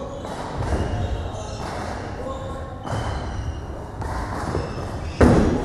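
A gymnast's bare feet and hands thudding on a gymnastics floor mat during a tumbling routine, with one loud landing thump about five seconds in.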